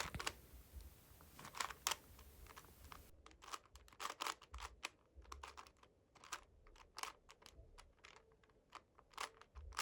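Rubik's 50th anniversary edition 3x3 cube, built to the original 1980s design, being turned by hand to scramble it: its plastic layers clack in quick, irregular faint clicks, a few each second.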